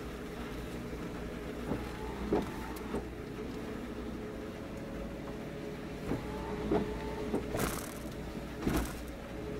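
Steady machinery hum from the large moored purse-seine fishing boats, with a held tone over a low drone, broken by several short creaks and knocks.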